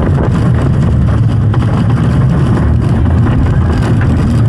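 Family roller coaster train running along its steel track: a loud, steady rumble of the wheels with light rattling.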